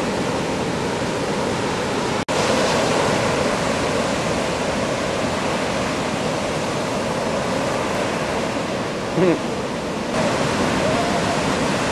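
Steady rushing noise of ocean surf and churning water, briefly cutting out about two seconds in.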